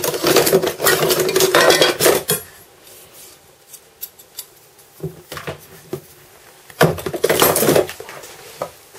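Metal kitchen tongs and a blunt knife clattering and scraping against a roast and a plastic cutting board as the strings are cut: a dense stretch of clatter for about two seconds, then two shorter bursts about five and seven seconds in.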